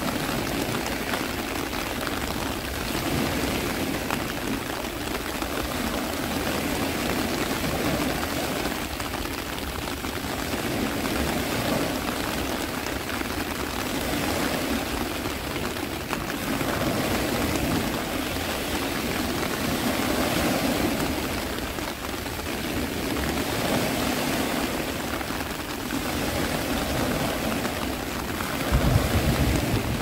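Steady rushing noise of rain and sea surf that swells and eases every few seconds. A deep low rumble comes in near the end.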